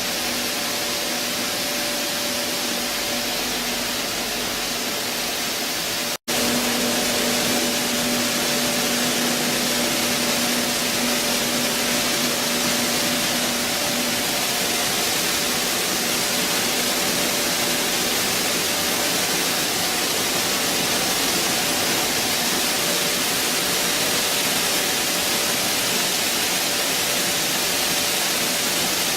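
Stone flour mill running: a steady rushing noise with a faint motor hum underneath, broken by a split-second gap about six seconds in.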